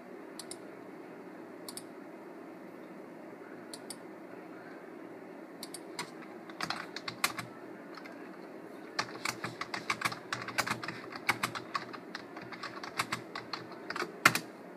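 Typing on a computer keyboard: a few scattered key clicks at first, then fast runs of typing from about six seconds in, busiest over the last five seconds.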